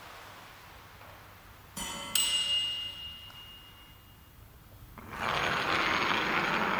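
A click, then a single bright struck ring with a few high tones that fade over about a second. About five seconds in, a steady rushing noise like surf swells up and holds.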